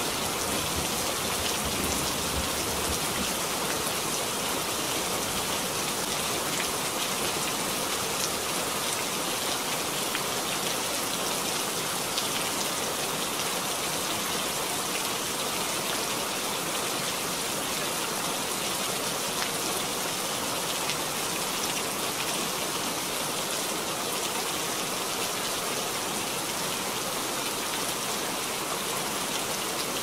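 Steady rain falling, an even hiss with no breaks; a low rumble of thunder dies away in the first few seconds.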